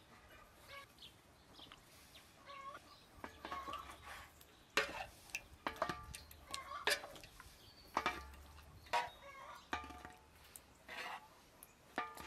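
A wooden spoon knocking against the mouth of a clay churning jar as thick yogurt is scooped in, sharp knocks about once a second from about five seconds in. Hens cluck in the background.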